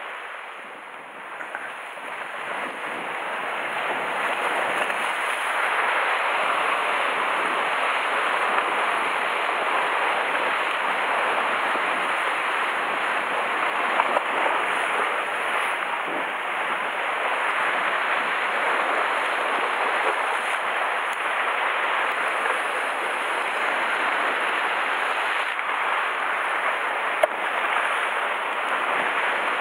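Sea surf washing against a rocky shore, a steady rushing wash that swells back up over the first few seconds. Two brief sharp clicks stand out, one near the middle and one near the end.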